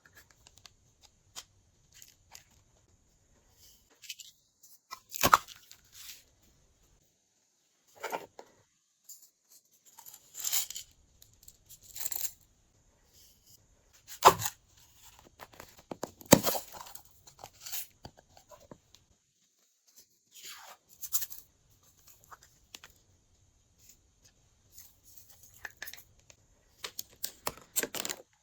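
Glossy slime being worked by hand: irregular sticky clicks, crackles and short tearing sounds with quiet gaps between, the loudest two about halfway through and a quick flurry near the end.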